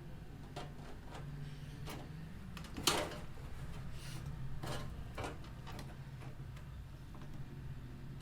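Scattered clicks and knocks of a graphics card and its metal bracket being handled and fitted into a desktop PC case's PCIe slot, the loudest about three seconds in, over a low steady hum.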